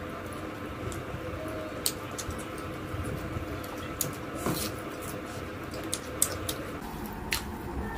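Close-up eating sounds of fried chicken being chewed by hand: wet chewing and lip smacks with scattered sharp clicks, over a steady faint hum.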